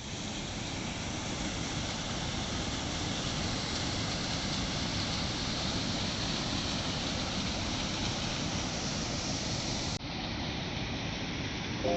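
Steady rush of falling water from a waterfall, a continuous even noise that drops out for an instant about ten seconds in.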